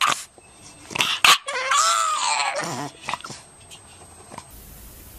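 Dog vocalizing: a drawn-out, wavering whine-like cry that drops in pitch at its end. It is preceded by a couple of sharp knocks about a second in.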